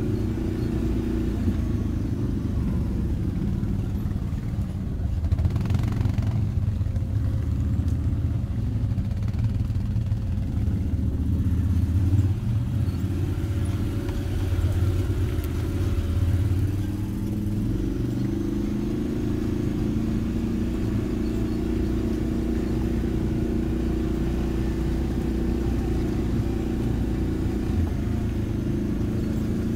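Quad bike (ATV) engine running as it is ridden along a rough, rocky dirt track. Through the middle stretch the sound is rougher and louder, with a low rumble, then it settles into an even engine note for the last third.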